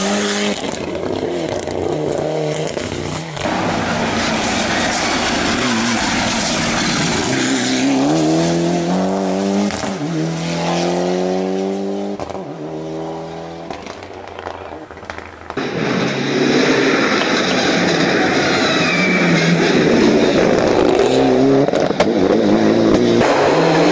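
Mitsubishi Lancer Evolution rally car's turbocharged four-cylinder engine racing on a hillclimb, revving up through the gears in quick rising steps. It fades as the car goes away, then comes back loud and close about two-thirds of the way through.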